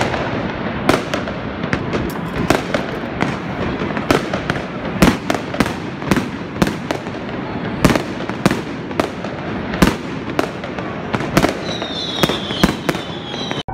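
Fireworks rockets bursting in the sky: many sharp bangs at irregular intervals, several a second at times, over a continuous crackle and rumble of further fireworks. Near the end a few whistles sound, falling slightly in pitch.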